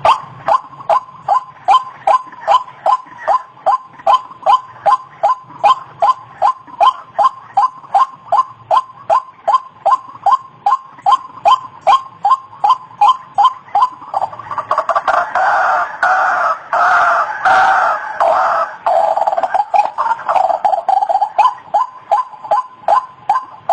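White-breasted waterhen (ruak-ruak) calling: a monotonous series of short, evenly repeated notes, about two a second. About two-thirds of the way through, the calling grows louder and runs together into a denser stretch for several seconds, then falls back into the steady repeated notes.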